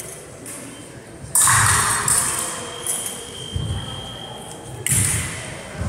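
Fencing footwork and foil blades: feet thudding on a wooden sports-hall floor several times, with sharp metallic clinks and scrapes of blade contact that ring in the large hall. A faint steady high tone sounds underneath.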